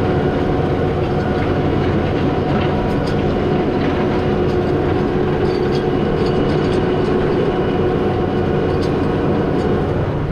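Tractor engine running steadily under load while pulling a plough, a constant drone with a steady hum and a few light rattles.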